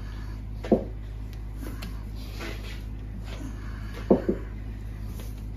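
Sharp metallic clicks of a spanner working the nut on an injector-sleeve puller as it is wound to draw a copper injector sleeve from a cylinder head: one click about three-quarters of a second in and a quick double about four seconds in, with softer scrapes between, over a steady low hum.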